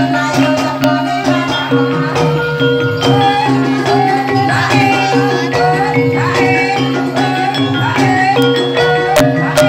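Banyumasan ebeg dance accompaniment music: steady melodic lines from tuned instruments over a low repeating bass, with sharp percussion strokes throughout. The strokes grow stronger near the end.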